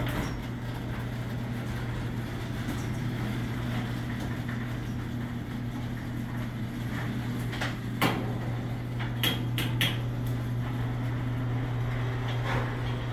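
Stanley garage door opener, newly fitted with a replacement worm gear housing, running steadily with a low hum as it raises the door. A few sharp clicks and knocks come past the halfway point.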